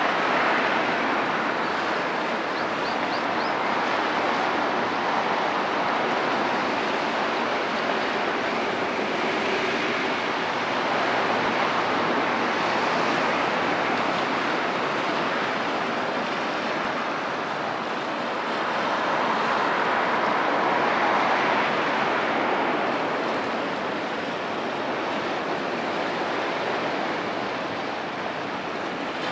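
Sea water washing, a continuous rush that swells and eases every several seconds.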